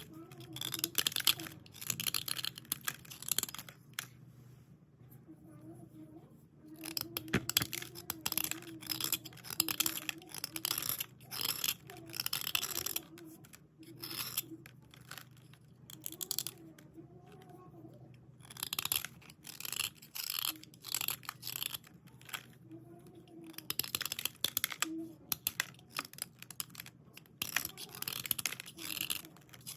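Dry white slate pencils being scraped and rubbed clean, giving a gritty, crackly scratching in bouts of a second or two with short pauses between.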